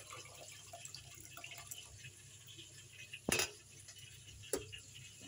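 Water poured from a pot into a metal rice cooker pot of rice, trickling and dripping. A sharp knock about three seconds in is the loudest sound, with a lighter one a second later.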